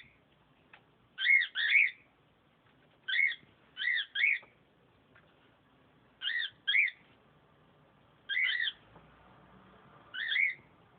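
Lovebird chirping: about six bursts of two or three short, high chirps, a second or two apart.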